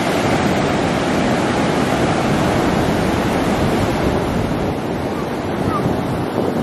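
Ocean surf: waves breaking and washing up a sandy shore in a steady rush.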